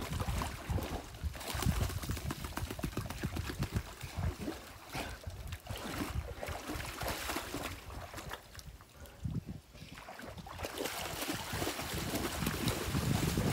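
Saint Bernard wading and splashing in a shallow pond, water sloshing and slapping irregularly around its legs and body, with a quieter lull about nine to ten seconds in before the splashing picks up again.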